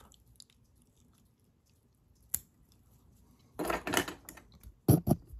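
Small fly-tying scissors snipping off excess CDC feather: a single sharp snip about two seconds in, then a quick cluster of snips and two more sharp snips near the end.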